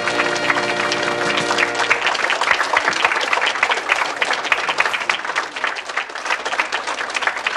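Audience applauding steadily, with a held chord of music that ends about two seconds in.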